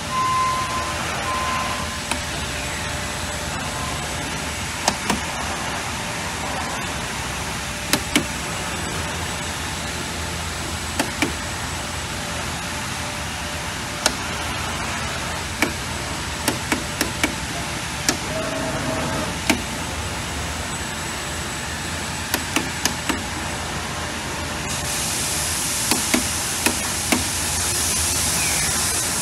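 Eastman C125 textile CNC cutting table running under power: a steady mechanical hum with irregular sharp clicks and knocks. A high hiss joins near the end.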